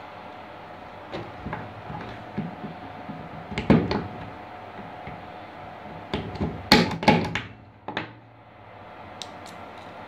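Scattered plastic clicks and knocks from handling a keystone jack and its cable wires on a desk, with the loudest cluster of knocks about seven seconds in. A steady low hum runs underneath.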